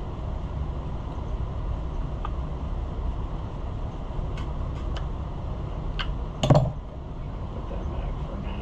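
A few light metal clicks and clinks as chainsaw parts and tools are handled during reassembly, with one louder knock about six and a half seconds in, over a steady low hum.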